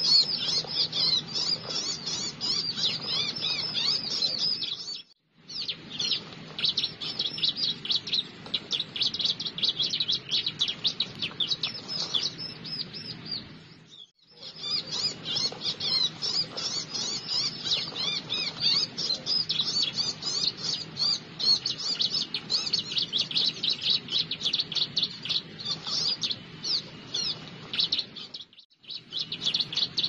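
Small prinia (prenjak/ciblek) calls, most likely a lure recording played to draw the birds in. They come as a dense, fast run of high chirps and trills. The chirping cuts off abruptly to silence for under a second about five seconds in, again about fourteen seconds in, and near the end.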